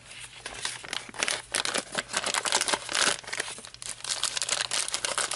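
Thin clear plastic toy wrapping crinkling in the hands, a continuous run of quick, irregular crackles and rustles.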